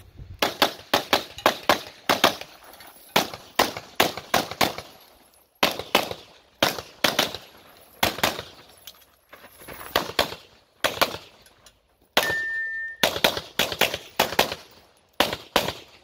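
Rapid pistol fire from a Carry Optics competition pistol: dozens of shots in quick pairs and strings, broken by short pauses. A brief steady beep sounds about twelve seconds in.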